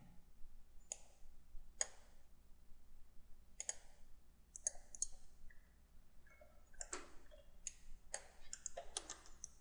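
Computer mouse clicking: about ten faint, sharp clicks at irregular intervals as items are selected on screen.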